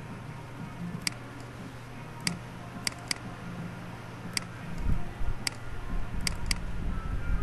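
Computer mouse button clicking: separate single clicks and quick double-clicks about a second apart, over a steady low hum. A low rumble comes in about five seconds in.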